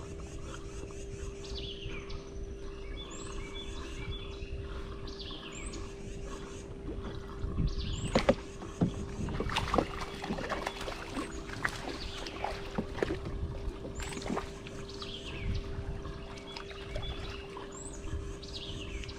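Birds calling outdoors, repeated downward-sliding whistled notes every couple of seconds, over a steady low hum. Scattered knocks and clicks come through, loudest about eight seconds in.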